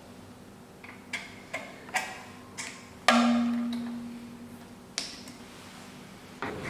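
Small metal clicks and knocks as parts are fitted into a key cutting machine, with one louder strike about three seconds in that rings on as a steady tone, fading over a second or so.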